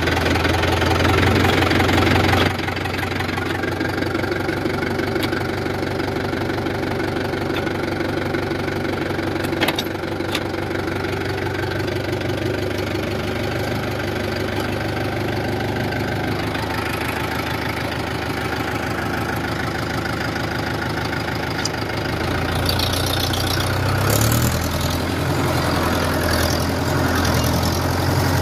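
Mahindra Yuvo tractor's diesel engine running with a steady knocking beat. It is louder for the first couple of seconds, settles, and picks up again over the last several seconds as the tractor drives on.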